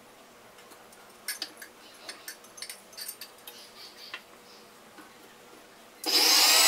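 Light clicks and taps of a knife cutting onion into pieces over a glass bowl. About six seconds in, a Sujata mixer grinder starts up loud, its motor whine rising as it grinds onion into melon-seed paste.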